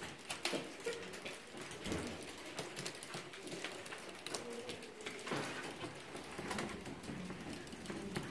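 Soroban (Japanese abacus) beads flicked rapidly by fingers, a fast, irregular run of small clicks during a multiplication calculation.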